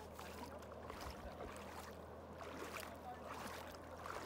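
Hot spring water splashing and trickling, with scattered small splashes and faint voices.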